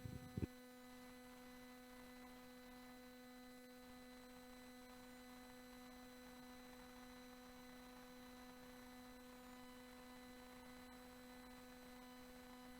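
Near silence with a steady electrical hum, after a brief knock about half a second in.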